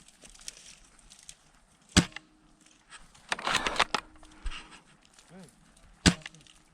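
Two sharp airsoft gun shots about four seconds apart, with a short burst of clicking and rustling between them.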